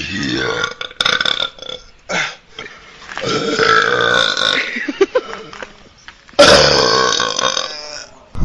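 Men belching, a series of separate burps. There are short ones in the first two seconds and a long drawn-out burp about three seconds in. The loudest and longest starts about six and a half seconds in.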